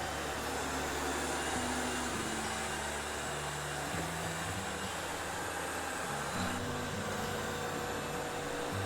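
Robot vacuum cleaner running with a steady whirring hiss of its suction fan and brushes. Faint low music steps along underneath.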